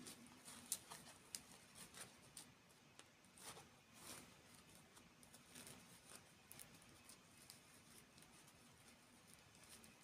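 Faint, irregular soft clicks and taps, with the sharpest one a little under a second in, over a faint steady hiss.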